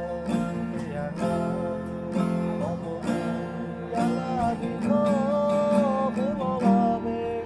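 Background music of strummed acoustic guitar with a gliding melody line over it.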